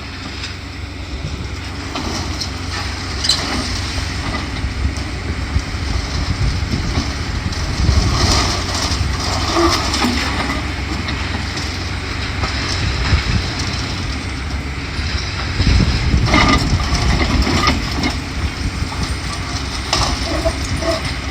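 Wind buffeting the microphone over the rumble of a demolition excavator at work, with clanks and clatter of debris now and then, busiest about eight seconds in and again around sixteen seconds.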